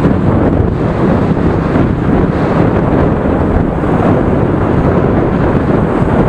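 Wind buffeting the microphone of a moving motorbike, over the steady rumble of engines and tyres in the surrounding scooter traffic.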